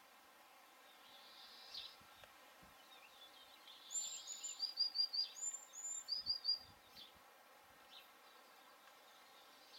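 Small birds singing: quick runs of short, high chirps, some falling in pitch, loudest from about four to seven seconds in.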